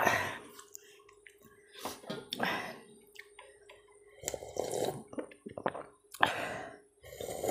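Slurping and gulping as curry gravy is drunk straight from a glass bowl, in about five separate bursts with short pauses between.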